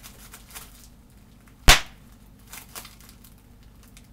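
Desk handling noise: one sharp slap or knock, then two light clicks, as objects are handled on a desk.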